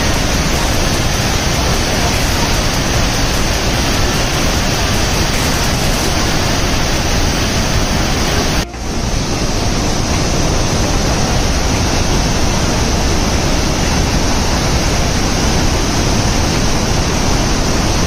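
Large waterfall pouring into a churning plunge pool: a loud, steady rush of water, broken by a brief dip about halfway through.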